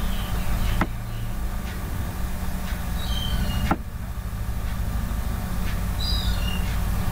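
Steady low background hum with a few faint clicks and several short, high chirps that fall in pitch, about three seconds in and again about six seconds in.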